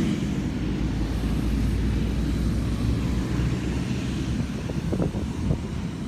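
Low, steady rumble of road traffic, with a few light taps near the end.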